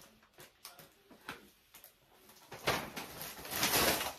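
Plastic packaging rustling and crinkling as items are handled, starting with a few light clicks and growing louder through the second half.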